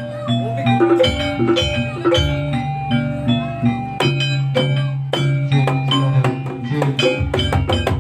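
Jaranan accompaniment music: gamelan-style tuned percussion struck in quick runs of ringing notes, with drum strokes and a sustained low tone underneath.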